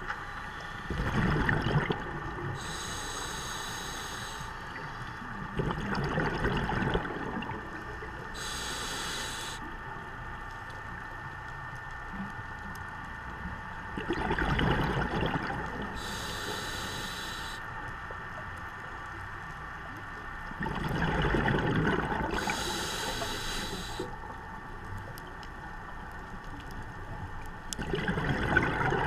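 Scuba diver breathing through a regulator underwater. High hisses of inhalation alternate with louder bursts of exhaled bubbles, one breath about every seven seconds.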